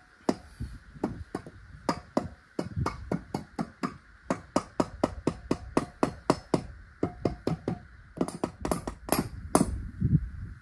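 Rubber mallet tapping a chilled end piece into a heated cast-iron exhaust manifold section of a Cummins ISX, fitting the joint by heat expansion. It makes a long run of quick knocks, about four a second, with short pauses.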